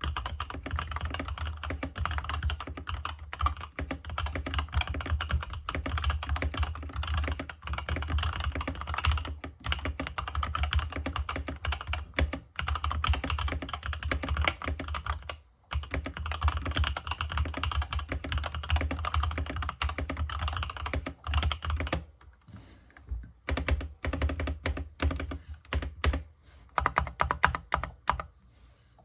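Fast, continuous typing on a Langtu GK-85 mechanical keyboard with golden switches, with a brief pause about halfway. In the last third the typing thins out to slower, separate key presses.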